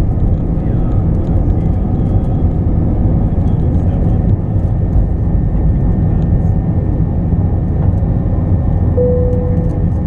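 Airbus A321's jet engines at takeoff power, heard from inside the cabin as a loud, steady low roar as the airliner lifts off and climbs. A brief steady tone sounds near the end.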